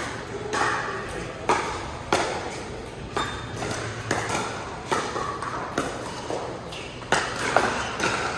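Pickleball paddles striking a plastic pickleball through a rally: a sharp pock roughly once a second, sometimes two in quick succession, each ringing on in a large echoing hall.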